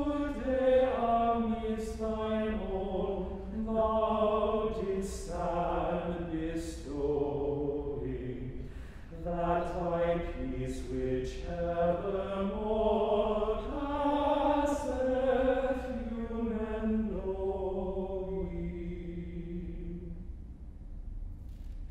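Unaccompanied plainchant sung by men's voices, moving in held, stepwise notes, with the last note fading away about 20 seconds in.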